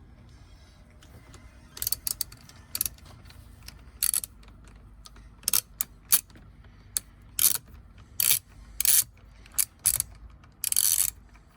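Socket ratchet clicking in a dozen or so short bursts, the longest near the end, as it backs out Torx screws.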